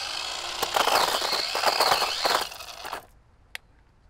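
Toy-grade RC car's small electric motor whining up in pitch and then holding, with gravel crunching and crackling under its wheels: the car is struggling to move on gravel. The motor and crunching stop about three seconds in.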